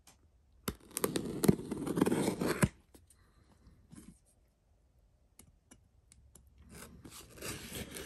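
Packing tape on a cardboard shipping box being slit and torn open. There is a rough scraping rip for about two seconds near the start, then a pause, then more scraping and clicking toward the end.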